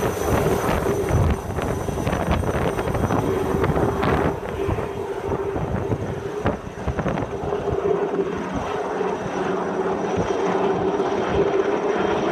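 Aérospatiale Lama helicopter flying overhead with an underslung long line: a steady rotor chop with a constant engine tone over it.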